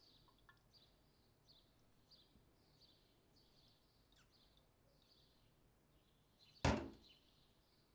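A ceramic bowl set down on a kitchen counter: one solid knock near the end, the loudest sound by far. Under it, faint high chirping repeats about twice a second.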